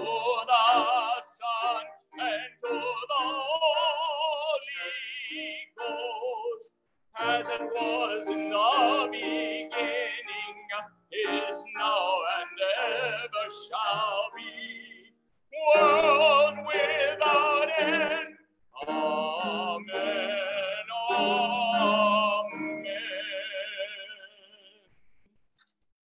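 A man singing a solo unaccompanied, with a wide vibrato, in phrases broken by short pauses for breath. The last note is held and fades out near the end. The voice comes through a phone's microphone over a Zoom call.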